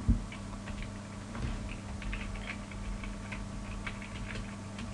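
Computer keyboard typing: light key clicks at an irregular pace, over a low steady electrical hum, with a single louder thump right at the start.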